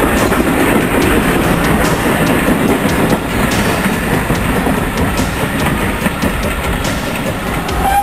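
Train of passenger coaches running past close by, its wheels rolling over the track in a steady rumble that eases slightly as the last coach passes and draws away.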